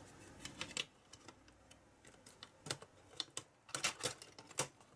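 Plastic hinge cover strip of a Fujitsu LIFEBOOK laptop clicking as it is pressed down and snapped into place above the keyboard: a scattering of sharp clicks, the most of them near the end.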